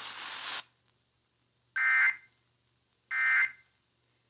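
Radio static hiss cuts off about half a second in, then two short bursts of Emergency Alert System SAME data tones follow about a second and a half apart. These are the end-of-message bursts that mark the close of the alert.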